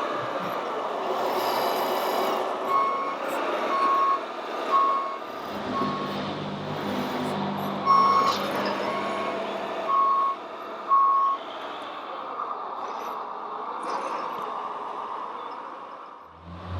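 Reversing beeper of a radio-controlled model truck, about eight short beeps at one pitch over several seconds. Under it runs the continuous whine of the models' motors and gears, rising and falling in pitch, and a low hum joins about five seconds in.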